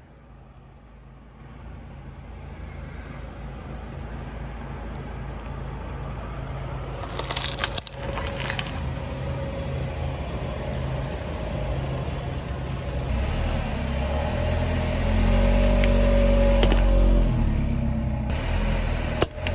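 A car's engine running as the car rolls slowly forward, growing steadily louder. About seven seconds in comes a brief burst of sharp crackling crunches, and the engine is loudest about fifteen seconds in.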